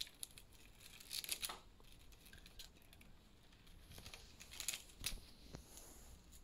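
Plastic cable wrap being unwound from an e-bike's brake cables and wiring bundle: faint crinkling rustles in two short spells, about a second in and again around five seconds.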